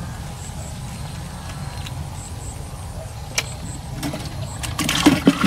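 A steady low rumble, with a single click partway through and a short burst of mechanical rattling and clicking near the end.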